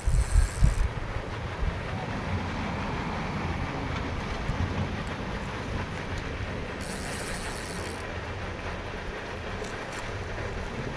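Steady low rumble of wind on the microphone, with two short high-pitched buzzing bursts, one at the start and one about seven seconds in.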